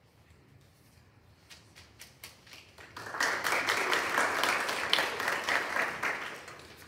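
Audience applauding: a few scattered claps at first, then a full round of clapping that starts about three seconds in and tapers off near the end.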